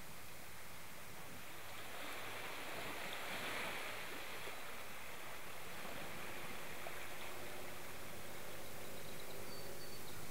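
Sea water moving and lapping as a steady hiss, swelling for a couple of seconds about three seconds in, then settling to a steady, even hiss.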